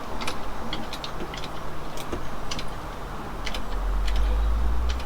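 Irregular light clicks and taps from handling a hydraulic crimping tool and a copper crimp lug while lining them up, with a low rumble near the end.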